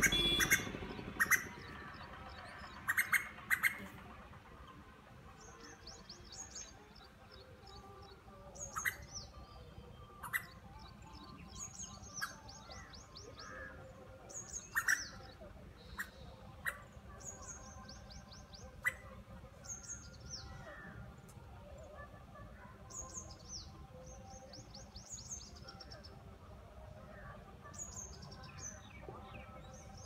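Small songbirds calling. A few sharp, loud calls come in the first seconds, then quick runs of high, falling notes repeat every second or two.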